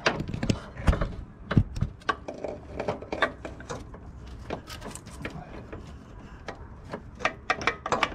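Irregular clicks, knocks and scraping of braided steel oil lines and their metal fittings being handled and fed through the engine bay, with a couple of heavier thumps in the first two seconds.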